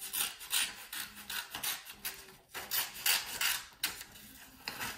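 Kids' pointed-tip scissors cutting through construction paper: a run of irregular, short, rasping cutting strokes, easing off about four seconds in.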